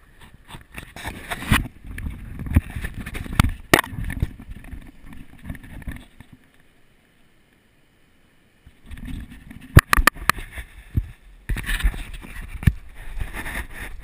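Handling noise on a chest-worn action camera: jacket fabric rubbing and bumping against it, with irregular low thumps and sharp clicks. The noise stops for a couple of seconds midway, then comes back with a cluster of clicks.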